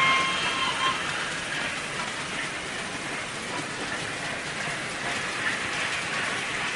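HO-scale Märklin model freight train of timber wagons rolling over the layout track: a steady, rain-like rattle of small wheels on the rails. A high steady tone stops about a second in.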